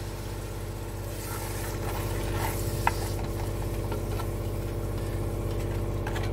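Fried onion and chili masala sizzling in a pot as a little water is added, with a spatula stirring and tapping against the pot. A steady low hum runs underneath.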